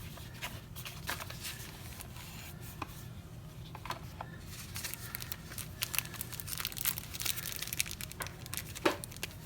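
Hands handling and opening the screen protector kit's packaging: crinkling and rustling with scattered small clicks and tears, busier in the second half.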